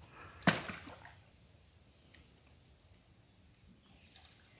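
A waterlogged branch caught on a magnet-fishing rope is hauled up out of river water: one sharp splash about half a second in, then faint dripping.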